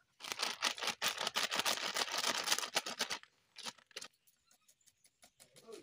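A loud crackling rustle lasting about three seconds, then a scatter of small sharp clicks as the cap of a plastic cooking-oil bottle is twisted open.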